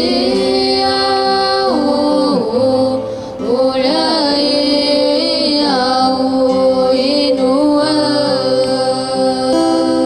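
A group of voices sings a traditional Paiwan ballad in parts. Long held notes are joined by slides in pitch, with two or more voices sounding at once.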